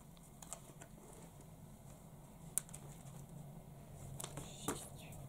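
Handmade paper stickers and cut-outs being handled: a few light, sharp paper clicks and taps, then a short paper rustle about four seconds in.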